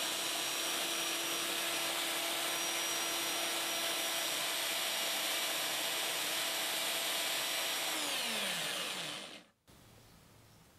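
Small electric power tool running steadily at high speed with an even whine, then switched off about eight seconds in and winding down to a stop.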